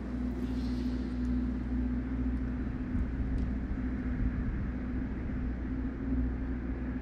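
Sci-fi industrial shipyard ambience: a steady deep machinery rumble with a constant low droning hum and a few faint ticks.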